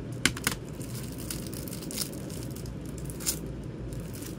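Plastic CD packaging crinkling and plastic CD jewel cases clicking as they are handled, with a few sharp clacks, the loudest about a quarter second in and others about two and three seconds in.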